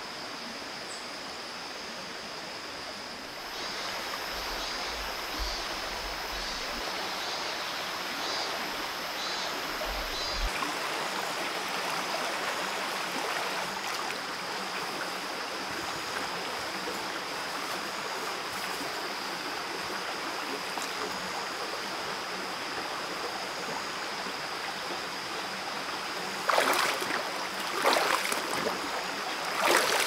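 Shallow mountain stream running over rocks, a steady rush of water. Near the end, three loud splashes as bare feet kick the water.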